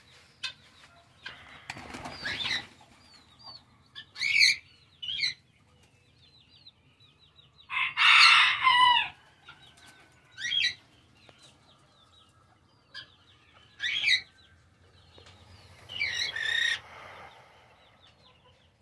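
Collared doves' wings flapping in short bursts as they take off and land among the aviary perches, with a few loud chicken calls, the loudest about eight seconds in, and faint small-bird chirping between them.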